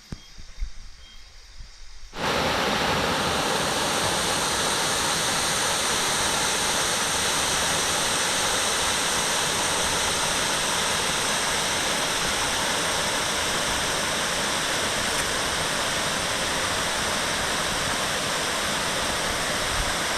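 Rushing water, a loud steady rush that cuts in abruptly about two seconds in and holds unchanged.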